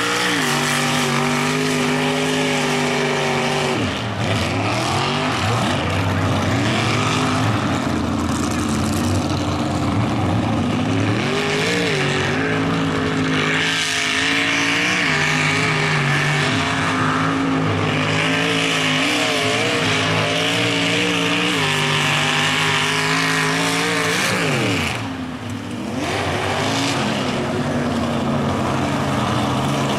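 Mud truck engine running at high revs as the truck ploughs through a mud hole, with a steady hiss of spinning tyres throwing mud and water. The revs drop briefly about four seconds in and again near the end, then climb back up.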